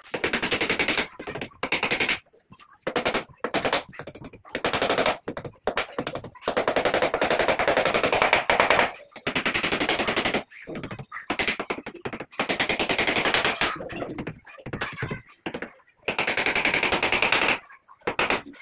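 Handheld power drill run in repeated bursts of one to three seconds against the head of a plywood door frame overhead, each burst a rapid, even hammering rattle.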